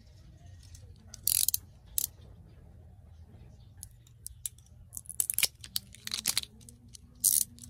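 Plastic shrink-wrap seal on a small gel polish bottle being cut with scissors and peeled off: short bursts of crinkling and snipping, about a second in, near two seconds, and several more in the last three seconds.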